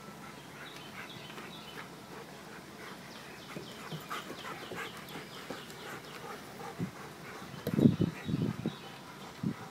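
German shepherds play-fighting: a cluster of short, low growls about eight seconds in and another just before the end. Birds chirp faintly in the background through the first half.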